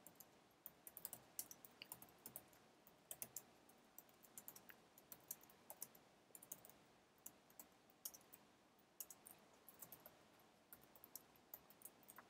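Typing on a computer keyboard: faint, quick, irregular key clicks in short runs as code is entered.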